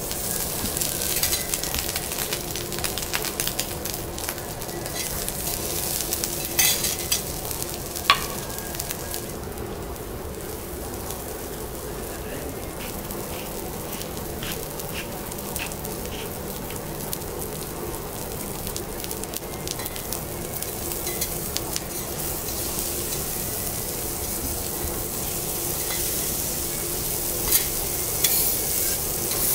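Slices of foie gras sizzling on a hot steel teppanyaki griddle, with scattered sharp taps and scrapes of metal spatulas on the steel. The sizzle grows stronger near the end.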